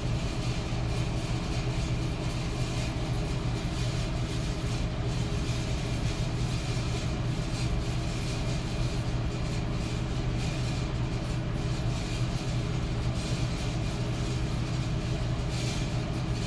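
Metal electric fan running steadily, its motor humming low under an even rush of air from the blades.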